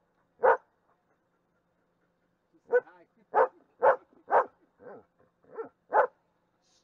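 German Shepherd dog barking: a single bark, then after a pause a quick run of seven barks about two a second.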